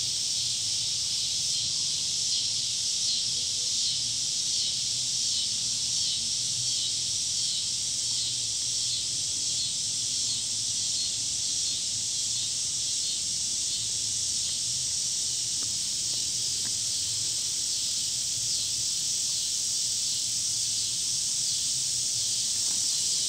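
Steady high-pitched hiss with a faint low hum underneath, unchanging throughout.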